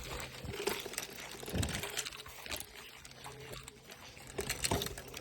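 Fishing reel being cranked in a retrieve, with scattered clicks and rustling from handling the rod.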